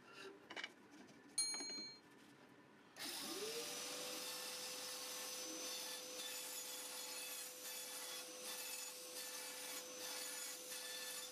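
A small band saw switching on about three seconds in, its motor whine rising quickly to a steady pitch, then running as the blade cuts a circle in a square of chipboard. Before it starts there are a few light clicks and a short bell-like chime.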